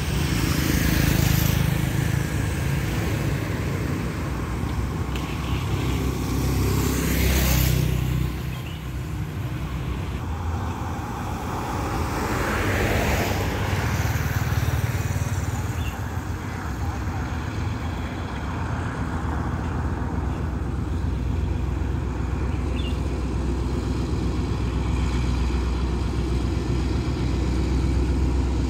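Road traffic: motorcycles and cars passing close by, with louder pass-bys about a second in, about seven seconds in and about thirteen seconds in, over a steady low engine rumble.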